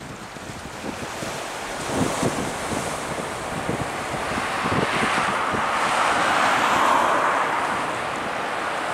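Twin Garrett TPE331 turboprop engines of a Fairchild Metroliner III running as it taxis onto the runway: a steady rushing noise that builds, with a higher band coming up in the second half. Wind buffets the microphone, with gusts about two and five seconds in.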